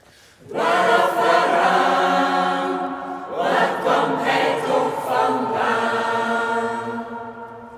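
Mixed choir of men and women singing together, entering loudly about half a second in on held chords, starting a new phrase about three seconds in, then growing softer near the end.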